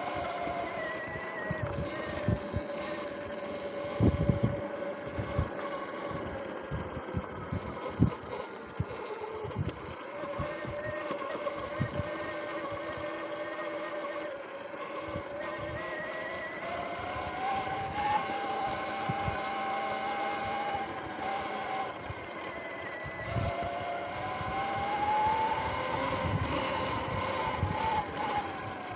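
Electric bike motor whining under way, its pitch rising and falling as speed changes, over irregular knocks and rumbles from the bike bouncing across rough grass.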